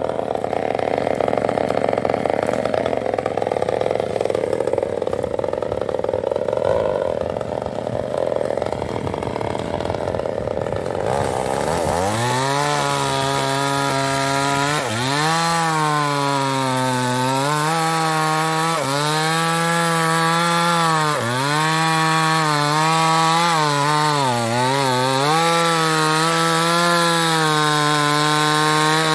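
New West 628 chainsaw with a 26-inch bar: a rough, noisy sound for about the first twelve seconds, then the engine revs up to a steady high note and cuts into wood, its pitch dipping several times as the chain bogs down in the cut.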